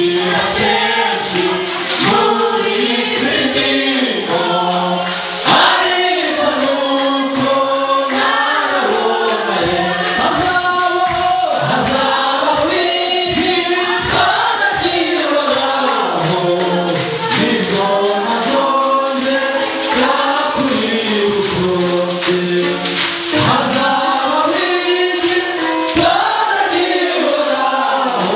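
Gospel praise singing: many voices singing together with a man's voice on a microphone, over a steady beat.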